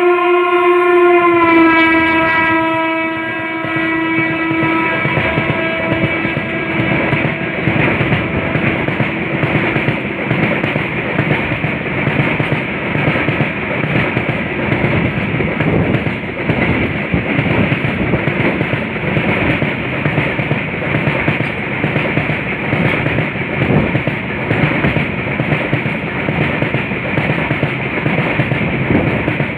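An electric locomotive's horn sounds for the first few seconds, dropping slightly in pitch about two seconds in as the engine goes by, then fades. After it, the goods train's wagons roll past close by with a steady noise and a rapid clatter of wheels over the rails.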